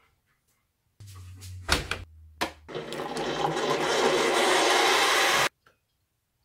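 Breville one-cup hot water dispenser running: a couple of clicks over a low hum, then hot water gushing steadily into a ceramic mug for about three seconds, stopping abruptly.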